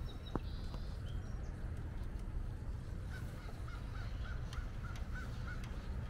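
Steady low rumble of a G scale model diesel locomotive running along outdoor track. About halfway through, a bird calls a quick run of about eight short notes.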